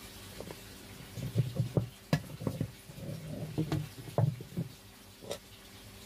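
Irregular light clicks and knocks of the plastic pulsator and a screwdriver as a twin-tub washing machine's pulsator is unscrewed and worked loose from its shaft.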